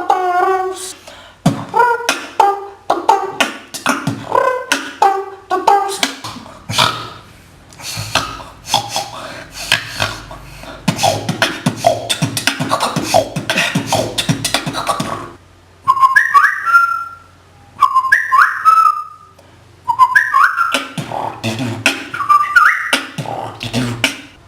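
A beatboxer making rapid percussive mouth sounds, clicks and snare-like hits, mixed with pitched vocal notes. In the last third come four short whistled chirps, each rising in pitch, about two seconds apart.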